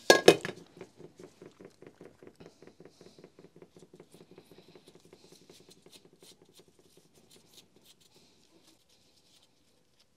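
A small metal gear part of a Makita HR5001C rotary hammer's gearbox is turned in the hands. It gives a sharp metallic clink at the start, then an even run of light clicks, about five a second, that fades away near the end.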